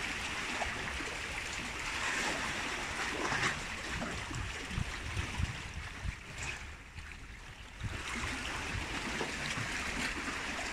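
Seawater washing and sloshing among the concrete tetrapod blocks of a breakwater, a steady rushing noise that goes briefly quieter about two-thirds of the way through.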